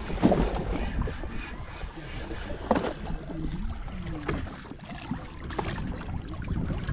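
Wind on the microphone and open-sea water washing against a small boat's hull, with a few sharp knocks.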